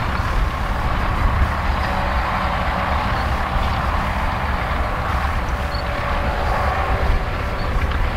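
Valtra tractor's diesel engine running steadily under load as it pulls a five-furrow reversible plough, a continuous low drone.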